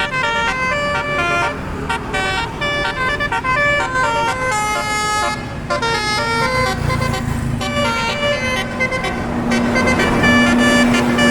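'Telolet basuri' musical horn on a truck or bus playing a quick melody of short stepped notes. Near the end a steady low drone and engine noise grow louder.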